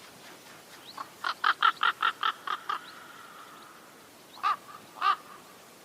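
Crow cawing: a quick run of about nine short caws, then two more about half a second apart.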